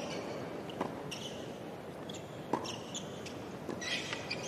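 Tennis rally on a hard court: a ball struck by rackets twice, about a second apart and a half, with short high-pitched sneaker squeaks as the players move between shots.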